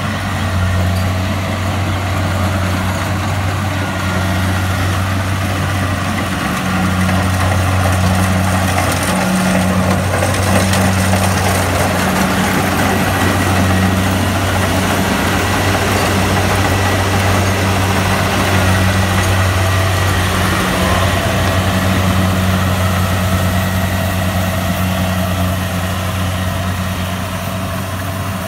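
Kubota DC-70 combine harvester running steadily while harvesting rice: a constant diesel engine drone with the hiss and rattle of its cutting and threshing machinery over it.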